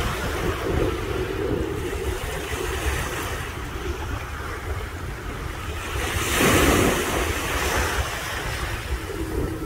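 Sea waves washing in steadily, with one louder wave surging about six and a half seconds in, and wind buffeting the microphone with a low rumble.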